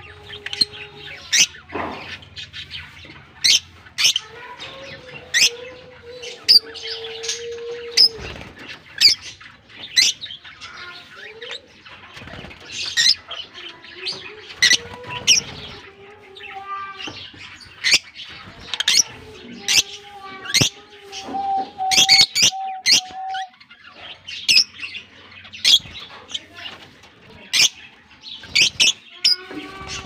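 Fischer's and masked lovebirds chirping: many short, sharp, high-pitched calls, often a second or less apart, with wings fluttering as birds move about. A lower drawn-out tone comes and goes beneath the chirps.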